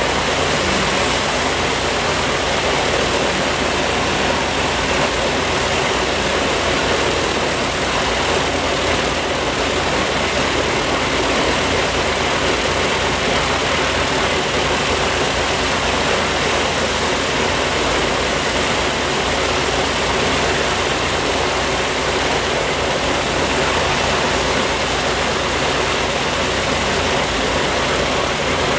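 Ilyushin Il-14T's left Shvetsov ASh-82T fourteen-cylinder radial engine running steadily, its propeller turning.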